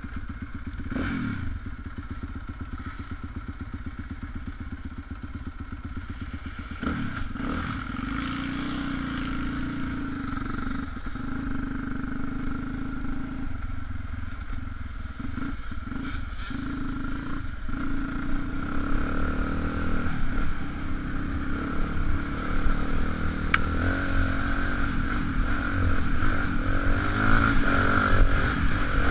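Motocross motorcycle engine running steadily, getting louder toward the end.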